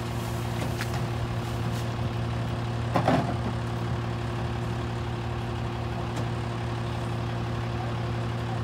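Autocar WXLL garbage truck's engine idling steadily at the rear of its McNeilus rear-loader body, with a brief loud clatter about three seconds in as a can is emptied into the hopper.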